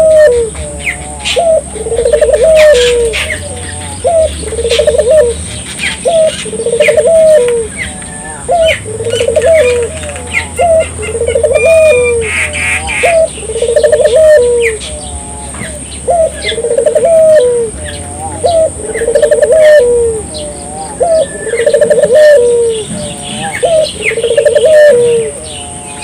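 A puter dove (collared dove) cooing over and over, one rising-and-falling coo phrase about every second and a half.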